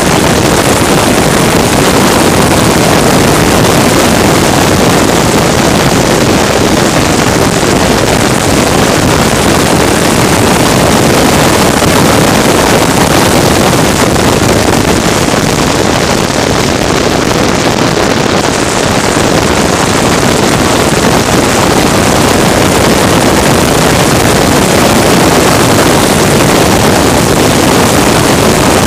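Loud, steady rush of wind on the microphone over a running racing vehicle's engine, with no distinct pitch changes or gear shifts standing out.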